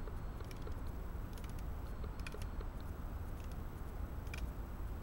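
Meru liner-lock folding knife carving a feather stick from green wood: the blade biting into the wood as short, scattered scraping clicks, over a steady low rumble.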